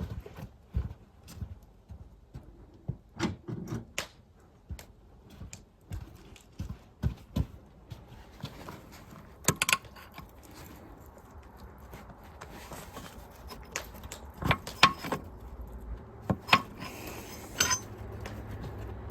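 Irregular metallic clicks, clinks and knocks of hand tools on steel engine parts, as a makeshift bolt puller is adjusted on the main bearing block of a Caterpillar D3400 diesel.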